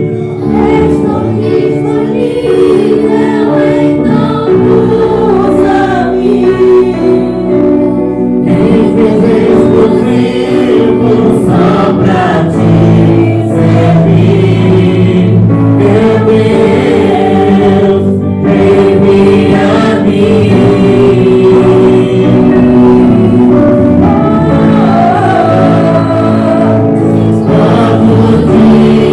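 A church praise team singing a gospel worship song in chorus with instrumental accompaniment, loud and continuous.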